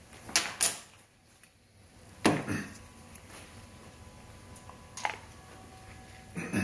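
Metal parts handled on a steel workbench: a few scattered clicks and knocks as the preload adjuster unit and its braided line are picked up and moved. The loudest knock comes a little over two seconds in.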